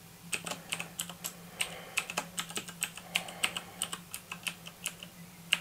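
Typing on a computer keyboard: a run of uneven key clicks, several a second, as a password is keyed in, with one sharper keystroke near the end. A steady low hum runs underneath.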